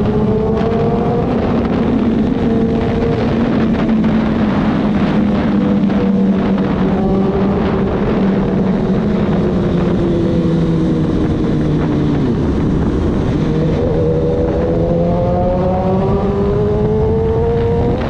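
BMW S1000RR inline-four sportbike engine running through an Akrapovic full exhaust system, under way inside a road tunnel. The engine note climbs near the start, holds, falls about two-thirds of the way through as the throttle is eased, then climbs steadily again near the end as the bike accelerates.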